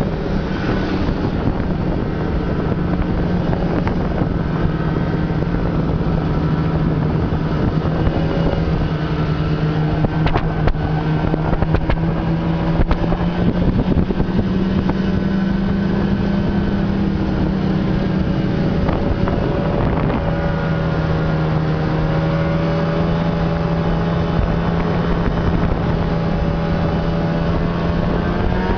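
Snowmobile engine running steadily under way, its note wavering slightly up and down with the throttle.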